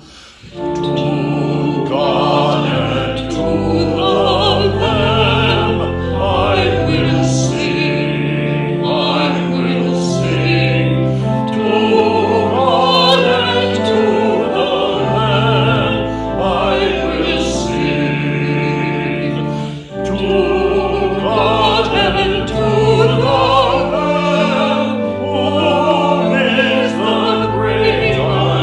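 Music: a choir singing a slow, classical-style piece over instrumental accompaniment, with held notes and a brief pause between phrases about two-thirds of the way through.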